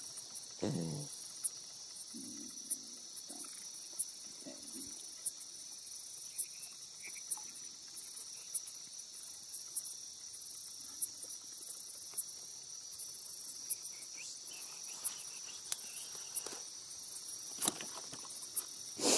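Steady high chorus of night insects, with short sharp clicks scattered throughout. Water splashes and drips as a fishing net is hauled by hand from the water, a few times near the start and again late on.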